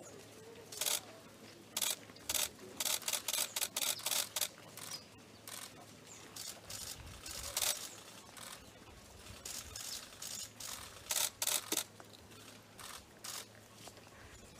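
Camera shutters clicking in repeated short bursts, with a rapid run of clicks about three to four seconds in and further clusters later.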